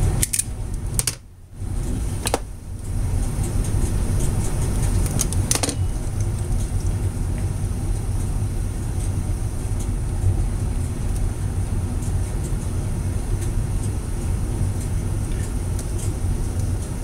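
A steady low background rumble that drops out briefly about a second in, with a few light clicks from stripped wires being handled and twisted together.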